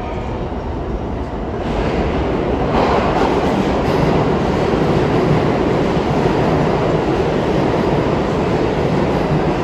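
R160 New York City subway train running on the tracks, a steady rumble that grows louder about two to three seconds in and then holds.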